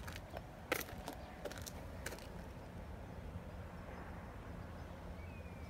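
A few footsteps and clicks on brick paving in the first two seconds, the sharpest just under a second in, over a steady low outdoor rumble; a faint short thin tone sounds near the end.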